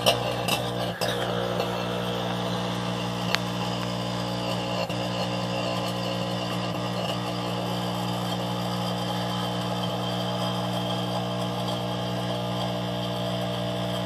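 Microwave oven running: a steady electrical hum from the transformer and fan. There are a few clicks as it starts and a single sharp tick a few seconds in. The oven is a faulty one that has been arcing badly inside.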